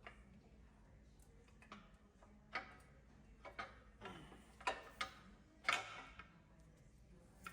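Metal engine parts and tools being handled during an LS V8 teardown: a scatter of light clicks and clinks, about seven in a few seconds, the loudest near the middle.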